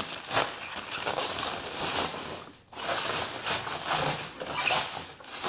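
Plastic wrap and adhesive protective film crinkling and rustling as it is pulled and peeled off a robot vacuum, in short irregular bursts with a brief pause partway through.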